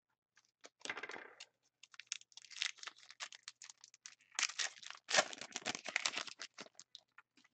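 Foil trading-card pack being torn open and its wrapper crinkled: a run of crackling rips and rustles, loudest about two-thirds of the way through.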